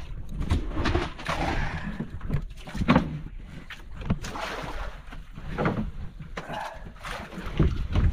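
Irregular knocks and clatter as a baited longline is paid out over the side of an outrigger boat, hooks pulling off the rim of a wooden bait box, over wind and water noise.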